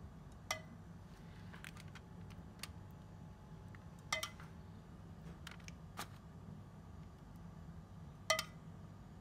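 Metal spoon clinking against a dish while sauce is spooned over fried chicken: three sharper clinks about four seconds apart, each ringing briefly, with lighter taps in between.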